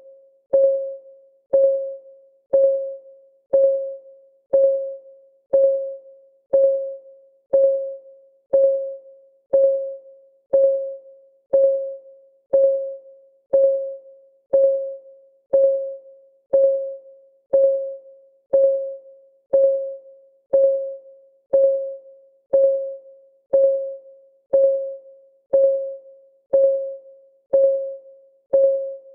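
Clock-ticking sound effect of a countdown timer: one short, pitched tick about every second, each dying away quickly, evenly spaced and unchanging.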